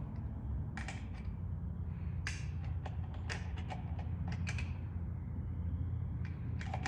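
Oil filler cap being fitted and twisted back onto the engine: a handful of short, light clicks and knocks, spaced irregularly, over a steady low rumble.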